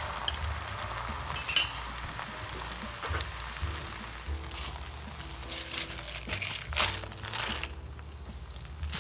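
Beaten egg sizzling and crackling in a frying pan, with soft music underneath.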